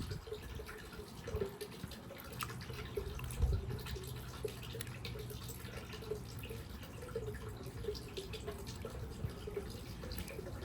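Water trickling and dripping through a toy water marble run, with many small irregular plinks and clicks.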